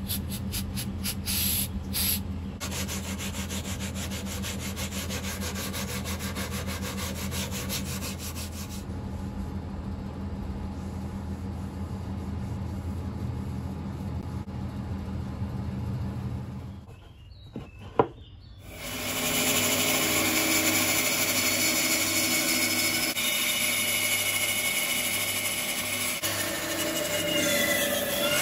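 A forged steel knife blade is sanded with abrasive, a steady rubbing over a low machine hum. About two-thirds of the way through, after a brief break, a bandsaw runs and cuts buffalo horn, a louder steady whine.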